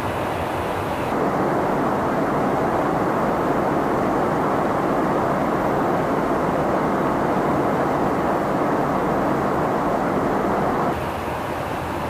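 Steady cabin roar of a KC-135 Stratotanker in flight: constant engine and airflow noise. It steps louder about a second in and drops back a little near the end.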